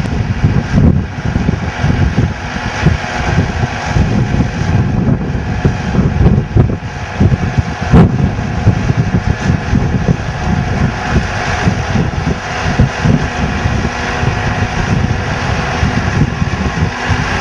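Tractor engine running steadily, with wind buffeting the microphone throughout and a single sharp click about eight seconds in.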